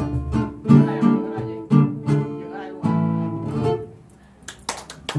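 Acoustic guitars playing an instrumental passage of plucked chords with a picked melody line. The playing drops away about four seconds in, leaving a second of quiet with a few light taps.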